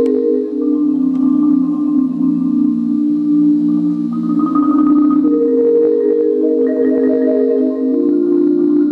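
A quartet of four marimbas playing slow, held chords, sustained by rolls, that change every couple of seconds.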